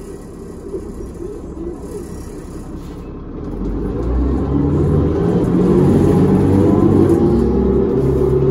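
Cummins ISL diesel inline-six of a New Flyer D40LF transit bus, heard inside the cabin near the rear: a low rumble at first, then from about three and a half seconds in the engine note climbs and grows louder as the bus accelerates.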